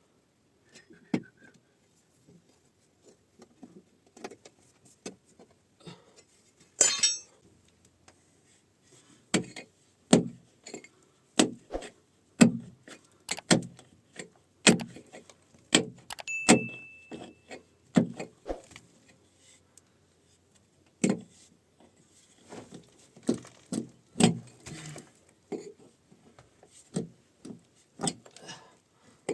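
Repeated knocks and thuds of hand-tool work, coming at uneven intervals and at times about one strike a second. There is a short scrape about seven seconds in.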